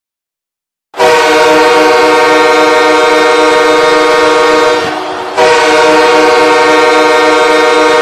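Los Angeles Kings goal horn, the arena horn that signals a goal, sounding in two long, loud, steady blasts: the first starts about a second in and the second follows a short dip near the middle.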